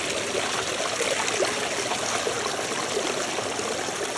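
Steady rush of flowing creek water at a waterfall.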